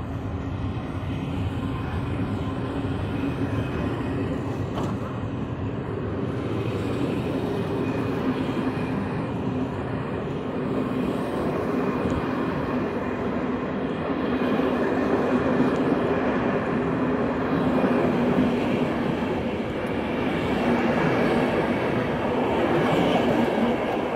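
ONCF passenger coaches rolling past on the rails: a steady rumble of wheels with a steady hum, louder in the second half as the last coaches go by.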